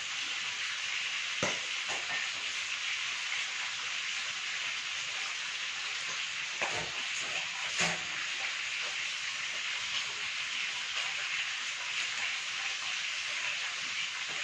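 Hot oil sizzling steadily in a frying pan, with a few light knocks of kitchen utensils.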